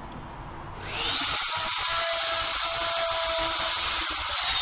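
Dongcheng electric router spinning up about a second in and running at speed with a steady high whine as its V-groove bit cuts a groove along an aluminium composite cladding panel; near the end the motor is switched off and its whine starts to fall.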